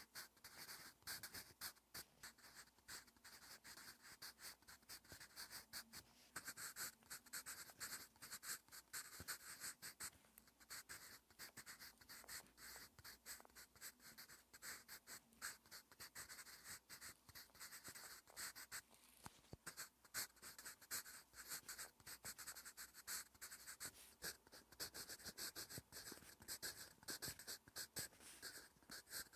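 Wooden graphite pencil scratching on lined paper as Korean letters are handwritten: a faint, continuous run of quick short strokes.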